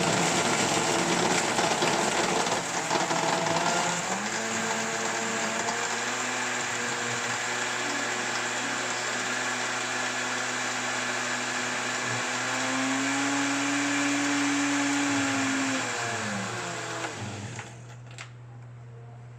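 Electric blender running, blending ice and milk into an iced coffee frappe. The motor's pitch rises a little near the end, then winds down and stops a couple of seconds before the end.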